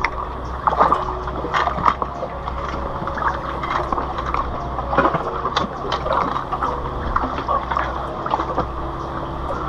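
A hooked freshwater drum splashing at the water's surface in irregular splashes, then water dripping and pouring off as it is lifted out in a landing net near the end.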